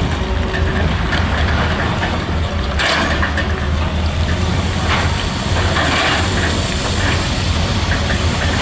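Excavator's diesel engine running steadily under load, with a hiss and irregular clatter over the low drone.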